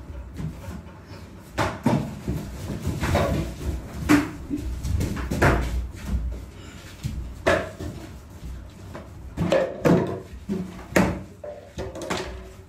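People scuffling and jostling on a hard floor, with about ten sharp knocks and thumps at irregular intervals.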